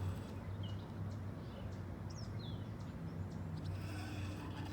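A few faint bird chirps, short downward-sliding calls, over a steady low background hum of open-air noise.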